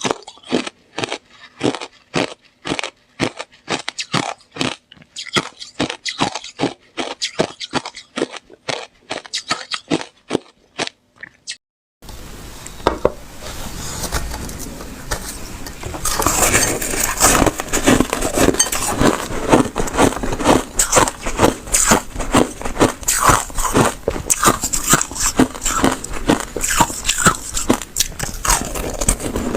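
Close-miked crunching of frozen slush ice being bitten and chewed, crisp crunches a few per second. About twelve seconds in, the sound changes abruptly to denser, nearly continuous crunching over a steady hiss.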